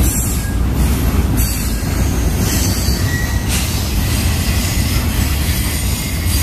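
Freight train cars rolling past: a steady, loud rumble of steel wheels on the rails.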